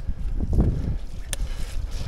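Mountain bike rolling over a dirt trail: an uneven low rumble from the tyres and the bike over the ground, with wind buffeting the microphone and one sharp click about a second and a third in.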